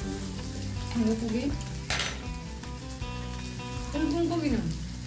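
Slices of beef sizzling steadily on a tabletop barbecue grill pan over a gas burner, with one sharp clink of metal tongs or chopsticks on the pan about two seconds in.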